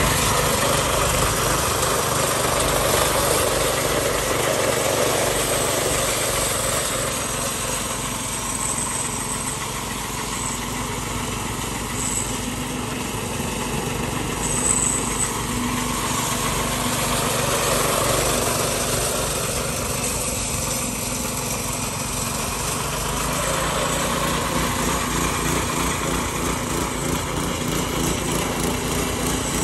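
Walk-behind concrete power trowel's small petrol engine running steadily while its rotating blades float the wet slab, the loudness swelling and easing a little as the machine is steered.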